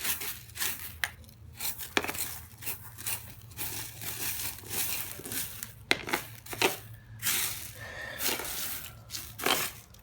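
Digging and scraping in loose ground: irregular scratchy scrapes and rustles.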